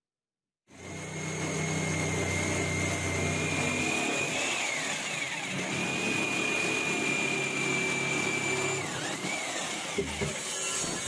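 DeWalt jigsaw running and cutting across a wooden board: a steady motor whine whose pitch dips briefly twice as the blade works through the wood, with one sharp knock near the end.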